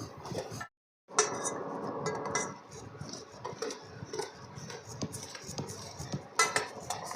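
A spoon stirring in a pan of jaggery tea cooking with crushed spices, clinking against the pan now and then, with a few sharper clinks. The sound breaks off for a short moment of silence about a second in.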